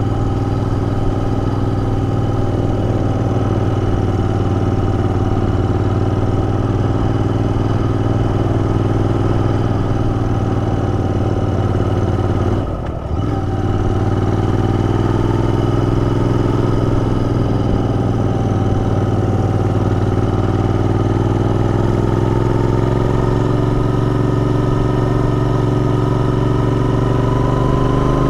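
Royal Enfield Interceptor 650's parallel-twin engine running steadily under way. The engine note dips briefly about halfway through, then its pitch rises slowly over the last few seconds as the bike picks up speed.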